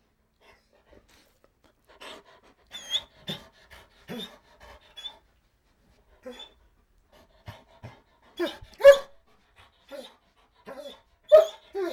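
A dog whining and whimpering in a string of short, irregular cries, as a begging dog does. A thin, high whine comes about three seconds in, and louder cries come near the end.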